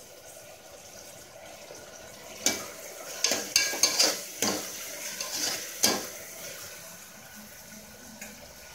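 Chopped onions and green chillies sizzling in hot oil in an aluminium pressure cooker. A spatula stirs them and clacks sharply against the pot's sides a number of times, from about two and a half to six seconds in.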